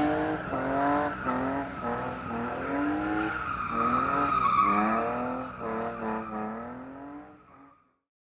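Drift car engines revving up and down again and again over a steady tyre squeal, then fading out near the end.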